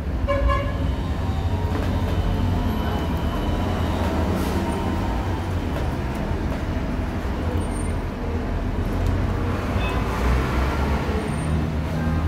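Steady low background rumble, with faint voices now and then.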